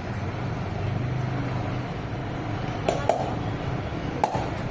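Steady low hum with a few sharp clicks from parts of a bench drill press being handled during assembly: two close together about three seconds in and one more near the end.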